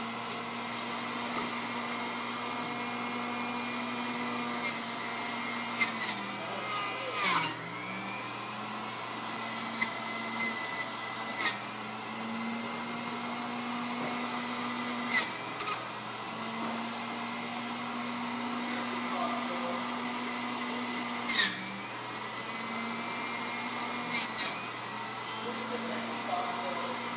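Electric juicer motor running steadily with a hum and hiss, its pitch dipping briefly a few times as produce is pushed down the chute. Several sharp knocks come in between.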